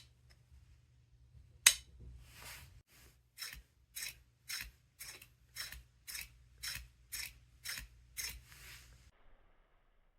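3D-printed plastic pieces being handled: one sharp clack, a short slide, then about ten light clicks, roughly two a second, with a soft slide at the end.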